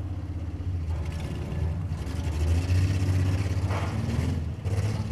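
Engines of a skid-steer loader and demolition-derby vehicles running with a steady low drone, their pitch rising and falling as they rev.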